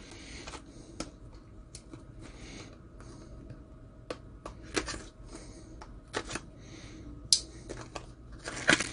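Small paperboard knife boxes being handled and opened, a run of scattered light clicks and soft rustles, with a sharper click about seven seconds in and a few more near the end.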